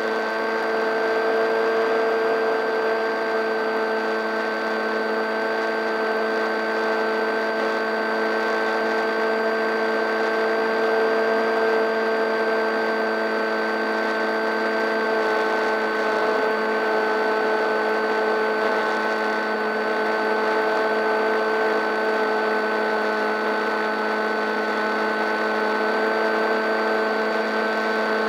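Electric motor and propeller of an RC foam plane, heard from a camera on the airframe, running at a steady high-pitched whine in cruising flight over a constant hiss.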